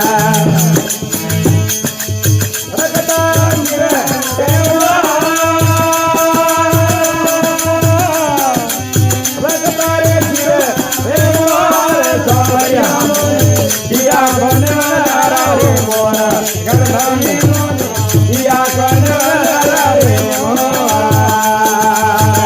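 Rajasthani desi bhajan music: a long-held, gliding vocal line over a steady low drum beat and constant rattling hand percussion.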